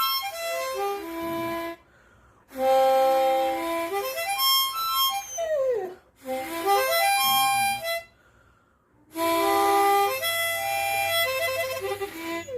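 Harmonica played haltingly by a beginner: short phrases of held, reedy notes stopping and starting with pauses between them, and a falling glide in pitch about halfway through.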